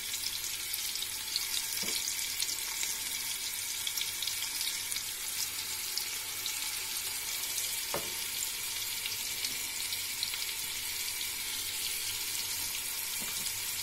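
Floured pork chunks frying in hot olive oil in a stainless steel pot: a steady sizzle as more pieces are laid into the oil, with a couple of faint ticks.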